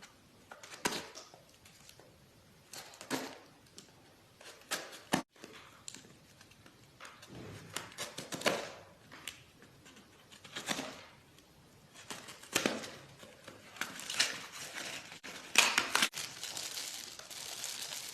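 A packet of fish hooks being torn open and handled: irregular rustles and crinkles of the packaging, busier and louder in the last few seconds.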